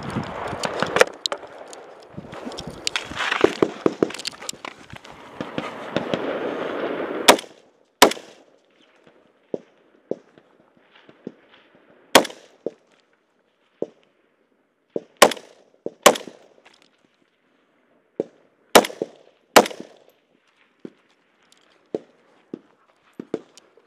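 A scoped rifle fired from a bipod: seven sharp shots, mostly in quick pairs, with smaller clicks between them. Before the first shot there are about seven seconds of rustling and scuffing as the shooter moves into position.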